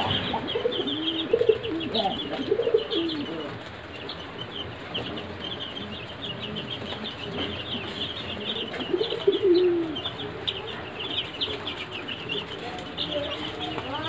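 A brood of Sonali chicks peeping, many short high cheeps overlapping without a break. Lower, arching calls from a larger bird come through in the first three seconds and again about nine seconds in.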